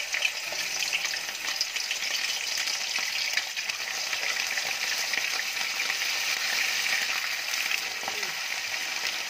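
Whole galunggong (round scad) deep-frying in hot oil: a steady sizzle with dense, fine crackling.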